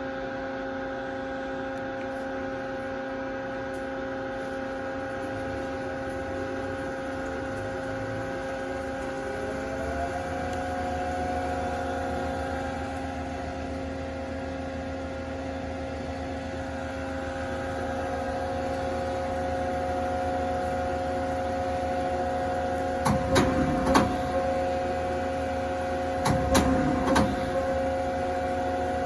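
Hurco TM10 CNC turning center running with a steady electric hum made of several held tones; a whine rises in pitch and settles about a third of the way in, and near the end a few sharp knocks and clatters come in two short clusters.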